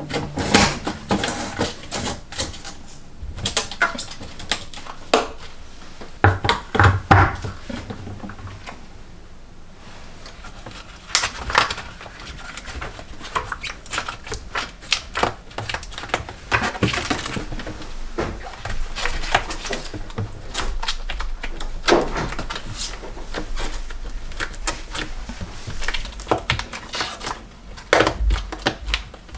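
Hands in rubber gloves working inside a stainless-steel dishwasher: the plastic drain filter is clicked and twisted into its housing, then a cloth rubs and scrubs along the tub walls and door edge, with irregular scrapes and knocks throughout.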